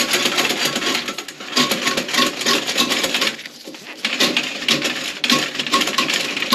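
Toilet plunger being worked in the bowl, water sloshing and splashing in quick irregular strokes with a short pause a little past the middle, to clear a suspected obstruction behind a weak flush.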